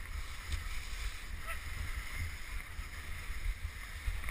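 Wooden krňačka horn sledge sliding downhill on packed snow, its runners hissing steadily, under a gusty low rumble of wind on the microphone.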